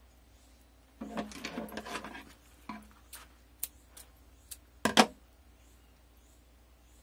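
Fabric and thread rustling and scraping as the thread is handled, for about a second. Then a few light clicks and a sharp double click about five seconds in, from a pair of scissors being used and laid down on a wooden tabletop.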